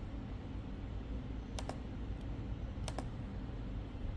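Sharp computer clicks as image files are selected and opened in a file dialog: a pair about a second and a half in, a faint single one, and another pair about three seconds in, over a low steady hum.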